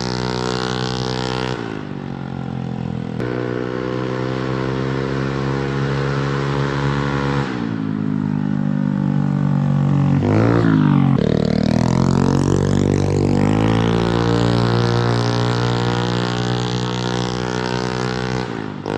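Motorcycle engine with an aftermarket Samlong exhaust running loud and steady at held revs. The pitch steps down a little early on, then dips and climbs back up about ten seconds in.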